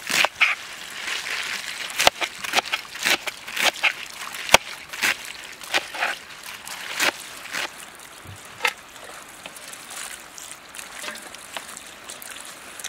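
Cleaver chopping crisp leafy greens on a cutting board, a crunchy knock about twice a second. The chopping thins out and stops about nine seconds in.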